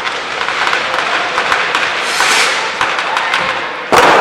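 New Year's Eve street fireworks: scattered firecracker pops and crackles over a steady background din, with a sudden loud burst near the end.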